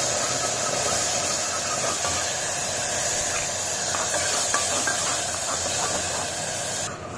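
Tomato puree sizzling hard as it hits hot oil and cumin seeds in an aluminium pressure cooker, a steady loud hiss of frying and steam. It stops abruptly near the end.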